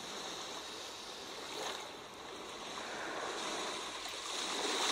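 Sea waves washing in, a steady rushing hiss that eases off about two seconds in and swells again near the end.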